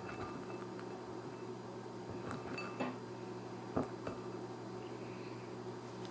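A few light clicks and clinks from handling crackers and dishes, over a steady low electrical hum.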